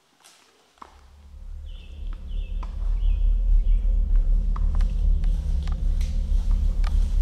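A deep low rumbling drone swells in about a second in and holds loud. Scattered sharp snaps of footsteps on the forest floor sound through it, with a few short high notes in the first half.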